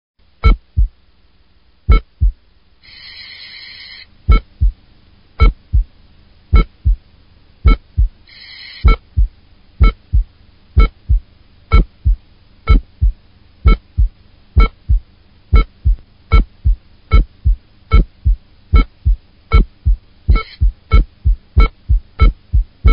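Heartbeat sound effect: loud paired thumps, lub-dub, repeating about once a second. Two short noisy, buzzing bursts break in, about three and eight seconds in.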